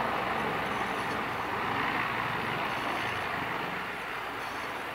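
Mil Mi-26 heavy helicopter running with its rotors turning: a steady wash of turbine and rotor noise.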